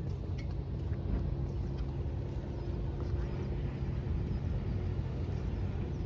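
Steady low rumble of distant fishing-boat engines out on the water, with a faint held hum that fades out about five seconds in.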